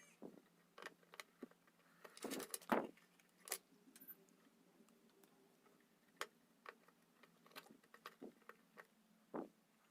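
Sparse small clicks and taps over near silence, with a brief cluster of rattling clicks about two and a half seconds in.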